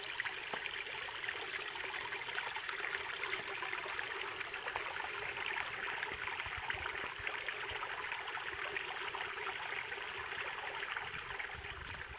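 Shallow river running steadily over a rocky, pebbly streambed.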